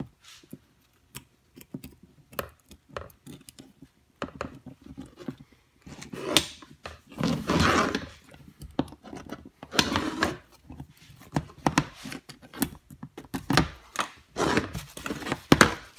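Small metal ratchet parts being worked by hand on a wooden workbench: irregular clicks and knocks as the retaining ring is fitted back onto a Benchtop ratchet head with a small screwdriver, with a few short rubbing scrapes in the middle and near the end.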